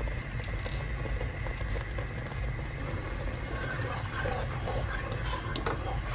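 Spatula stirring and scraping thick chili and spice paste in a pot on the stove, starting about halfway in, with light patter before it and a steady low rumble underneath.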